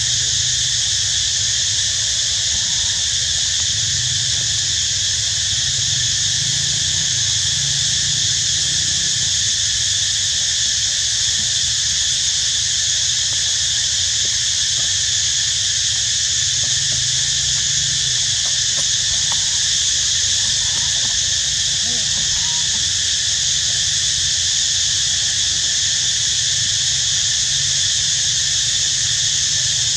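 A steady chorus of insects droning, high-pitched and unbroken.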